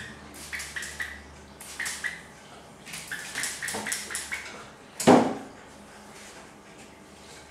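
Hand spray bottle squirting a water-and-conditioner mix onto a puppy's curly coat: short hissing spurts in quick clusters. About five seconds in, a single louder thump.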